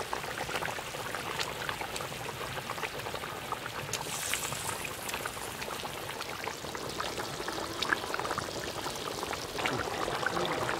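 Watery fish curry gravy boiling in a large wok: a steady bubbling hiss with scattered small pops.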